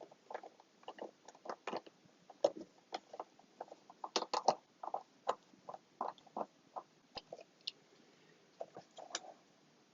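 Small irregular clicks and scrapes of an M3 screw being turned in with a small screwdriver to draw its nut tight, with light taps of the flat-pack panel. They thin out about seven seconds in.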